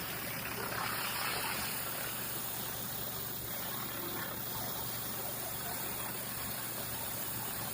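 Commercial pressure washer running steadily, its engine and pump going while high-pressure water sprays across concrete, with a brief swell in the spray about a second in.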